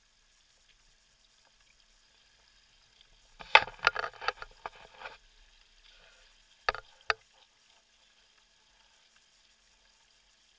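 Water slapping and splashing against a sailing kayak: a cluster of sharp slaps about three and a half seconds in, lasting over a second, then two more sharp slaps about a second and a half later, with little else heard between them.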